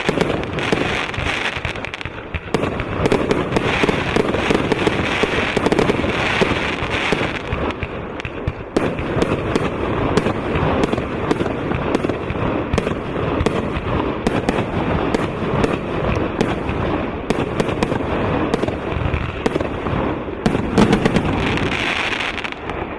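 Golden Eye GE1101 Artemis 1-inch, 101-shot firework cake firing: a rapid, unbroken volley of launches and bursts with crackling.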